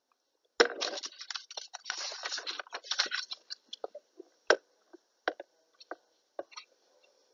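Handling noise close to the microphone: a dense rustling crackle lasting about three seconds, then a scattered run of sharp clicks.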